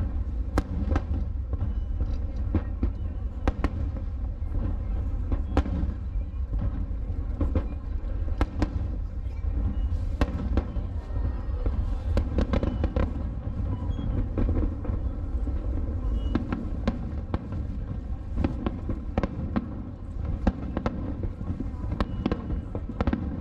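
Aerial firework shells bursting one after another in a continuous barrage: repeated sharp cracks and booms over a constant deep rumble.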